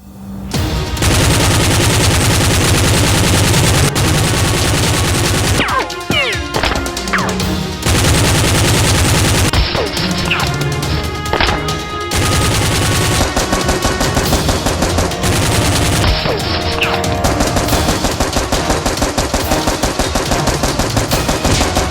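Rapid automatic gunfire going almost continuously, with a few short breaks, over action music.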